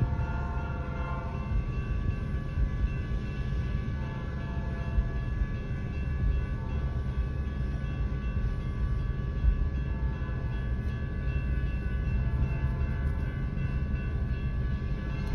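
Freight train rolling through a level crossing: a steady rumble of the passing cars. A train horn sounds briefly near the start and again faintly later.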